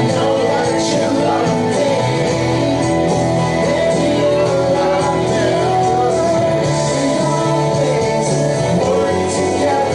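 Live worship band playing a song, with singing over guitar and sustained chords.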